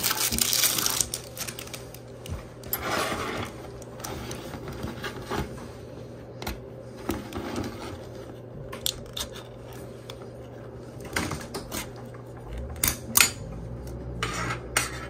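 Packaging wrapper crinkling for about the first second. Then a sardine tin's pull-tab lid is pried up and peeled back: scattered light metallic clicks and scrapes, with the sharpest snaps near the end.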